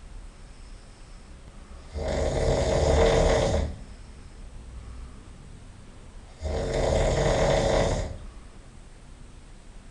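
A person snoring loudly in sleep: two long snores about four and a half seconds apart, each lasting about a second and a half, with much quieter stretches between them.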